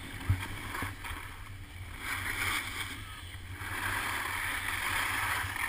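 Skis sliding over packed snow: a rushing hiss that swells and fades with the turns, over a low wind rumble on the camera. A short knock about a third of a second in.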